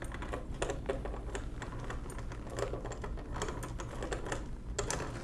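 Carry mechanism of a 1920s Monroe model K mechanical calculator being turned by hand: its small steel levers and gear clicking in a rapid, irregular run of light clicks.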